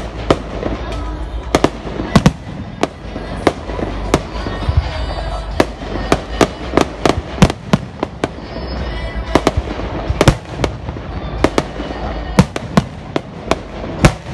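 Aerial fireworks shells bursting overhead: a rapid, irregular run of sharp bangs, at times several a second, over a steady low rumble.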